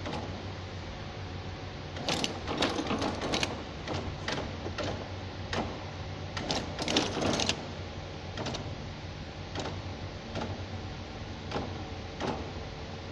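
Tea bag packing machine's cams and linkages clattering over a steady low hum. Sharp mechanical clicks come about once a second, with two spells of rapid, louder clattering, one about two seconds in and one near the middle.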